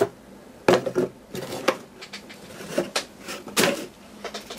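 Handling noise from unpacking: a string of short, irregular knocks, taps and rustles as a cardboard box and plastic-wrapped accessories are moved about.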